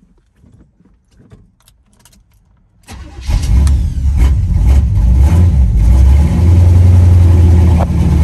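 A Chevy C10 pickup's small-block V8 starts about three seconds in, catching at once, then runs loud and steady as a cold engine warming up.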